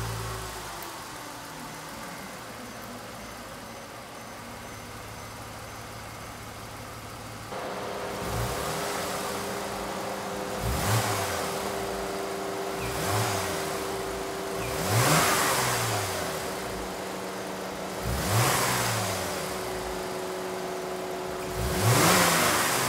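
Mercedes-Benz C300 V6 engine, still breathing through its stock twin air intakes, idling steadily and then, from about eight seconds in, revved in about six short throttle blips a couple of seconds apart, each rising and falling back to idle, the last ones the loudest.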